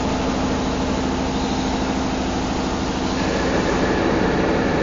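Electric hoist of a 15-ton overhead crane running steadily as it slowly lifts a railroad traction motor, a steady mechanical hum; a higher whine joins about three seconds in.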